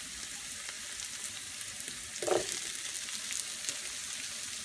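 Diced onions sizzling in oil in a frying pan, a steady hiss, as chopped bell peppers are added. A brief louder sound comes about two seconds in.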